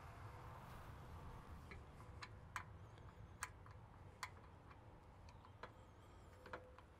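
Faint, irregular light clicks and taps, about ten spread over several seconds, over a low steady hum. They come from handling parts of a tractor's front cooling package as a pulled-out piece is fitted back into place.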